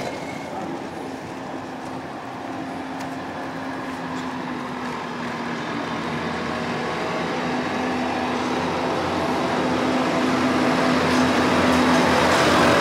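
A small utility truck drives up and approaches, its motor humming steadily and growing louder throughout, loudest near the end.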